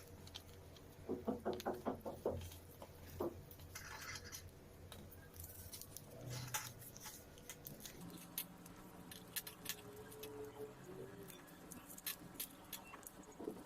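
Paper being folded and creased by hand: scratchy rustles and small clicks, with a quick run of about seven ticks a second in.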